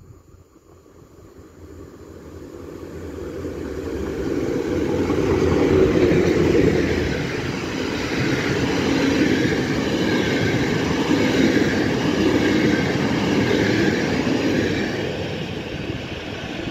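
Freight train hauled by a PKP ET22 electric locomotive passing through at speed with a string of flat wagons: the rumble swells as it approaches, then a steady clatter and rumble of wagon wheels on the rails as the wagons go by, easing slightly near the end.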